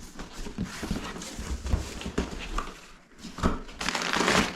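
Cardboard box being opened by hand: paper tape pulled and cardboard flaps handled, with irregular knocks and rustles and a longer, louder rustling stretch near the end.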